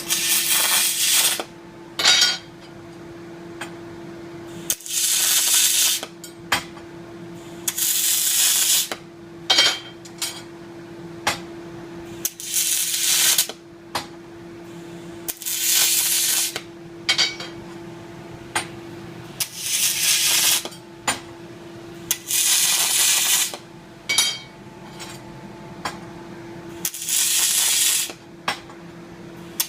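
MIG/MAG welding arc from a FIMER TM335 EVO double-pulse welder, hissing and crackling in short welds of about a second each, about ten times over. Sharp clicks fall between the welds, and a steady hum runs underneath.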